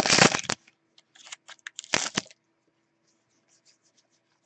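A foil trading-card pack wrapper torn open with a crinkling rip in the first half-second. Then come light clicks and rustles of the cards being slid out and handled, with another short crinkly burst about two seconds in.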